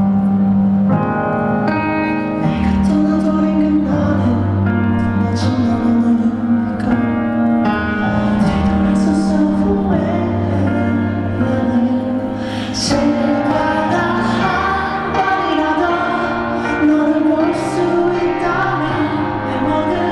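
Music: sustained chords with a singing voice.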